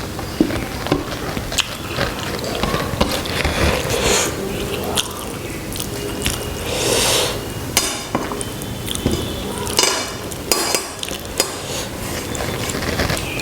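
Close-up eating sounds of a rice and egg curry meal: chewing, food being mixed and scooped on a plate, and scattered sharp clinks against the plate.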